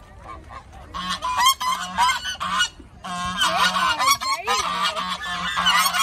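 A flock of white domestic geese honking in a dense, overlapping chorus that starts about a second in, with a brief lull around three seconds.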